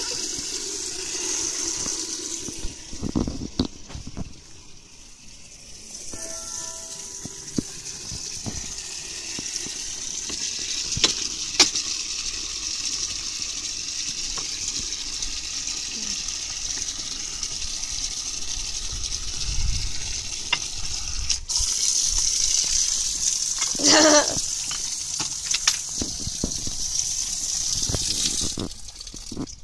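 Water from an outdoor wall tap running into a plastic bucket to fill it. It makes a steady rushing that grows louder in the later part and stops shortly before the end.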